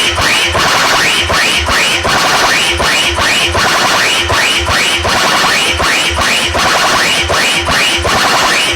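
Loud electronic dance remix: a heavy kick-drum beat about two hits a second, with a chopped sample that sweeps upward repeating on the beat.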